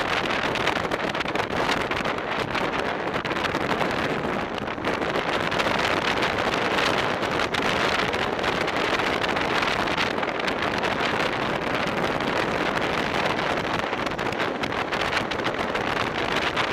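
Steady rush of wind over the microphone of a camera riding on a racing bicycle at speed.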